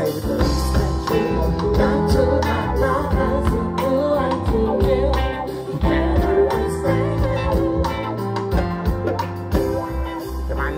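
Live reggae music: a male singer over the backing band, with a heavy steady bass line, guitar and drums.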